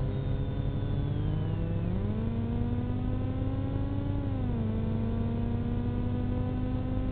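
A vehicle engine running over a steady low rumble. Its pitch steps up about two seconds in, eases down about halfway through, and drops again near the end.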